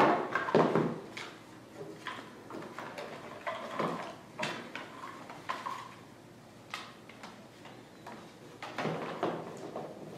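Cardboard board-game boards and box being handled and set down on a wooden floor: irregular taps, slides and rustles, loudest about a second in.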